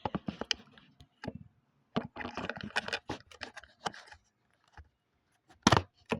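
Plastic Lego bricks clicking and rattling as they are handled and pulled apart, in clusters of small clicks, with two louder knocks near the end.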